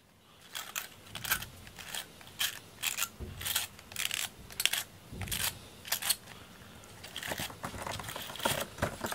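A cat clawing a corrugated cardboard scratcher: a run of dry, crunchy scratching strokes, about two a second.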